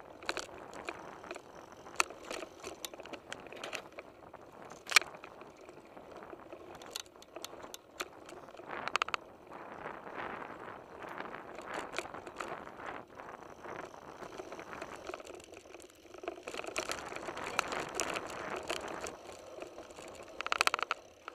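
Mountain bike riding over a rough dirt singletrack, picked up by a camera mounted on the bike: a steady rattle and crunch of tyres and frame, with frequent sharp clicks and knocks over bumps, the loudest about five seconds in.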